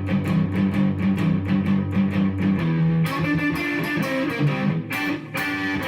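Fender Stratocaster played through an Orange amp set to a light crunch, a mildly distorted tone. It plays a rock and roll rhythm part of fast, even strokes, about five a second, then turns to a busier, brighter phrase about halfway through.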